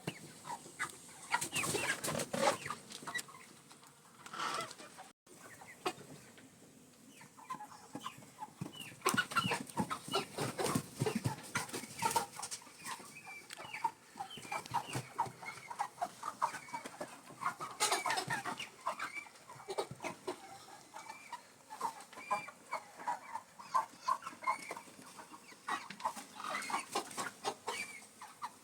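Flock of broiler chickens clucking, many short calls overlapping, with scattered clicks and a brief dropout about five seconds in.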